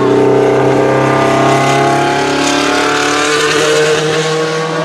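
Historic Formula 1 car's engine running at high revs as it passes. Its pitch climbs through the middle and changes abruptly about three seconds in.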